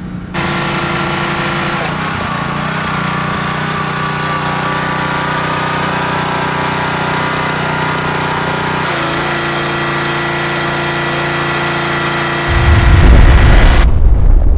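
Small engine of a pressure washer running steadily under a hiss, its pitch shifting about nine seconds in. About two seconds before the end a loud rumbling explosion sound effect takes over.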